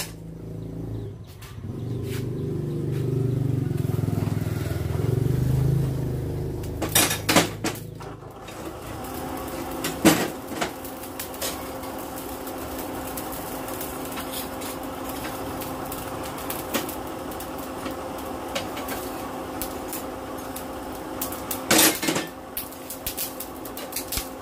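Steel tongs and forge tools clinking and clanking against metal at a coal forge, with a few loud clanks. From about nine seconds in, a steady machine hum, the forge's air blower fanning the coal fire.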